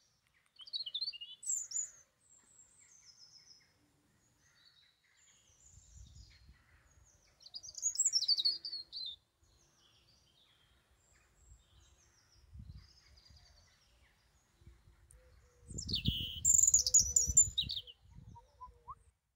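European robin singing: three short, high, trilling and warbling phrases spaced several seconds apart, the last the loudest. A low rumble lies beneath the middle and last phrases.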